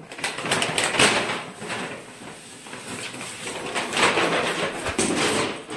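Large paper shopping bag rustling and crinkling as it is moved about, loudest about a second in and again around four to five seconds.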